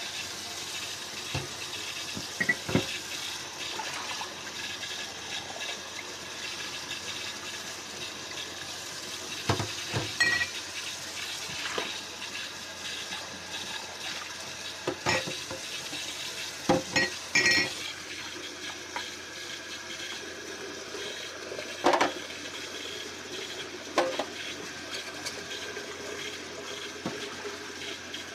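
Water running from a kitchen tap into the sink while dishes are washed, with scattered sharp clinks and clatters of plates and utensils knocking together, a few ringing briefly.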